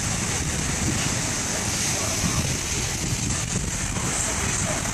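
Small waves breaking on a sandy beach, with wind buffeting the microphone in a steady, uneven rumble.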